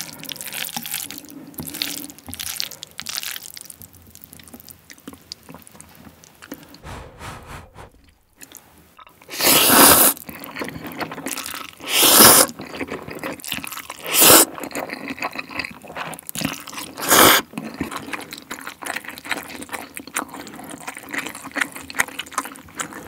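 Ottogi Jin Jjajang instant noodles in black bean sauce being stirred and lifted with wooden chopsticks, soft wet sticky sounds; then, from about ten seconds in, four loud slurps of the saucy noodles, with chewing between.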